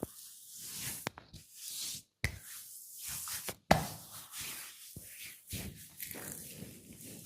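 Hands rubbing and kneading during an oil head and body massage, in swelling waves of friction noise, broken by a few sharp knocks, the loudest about three and a half seconds in.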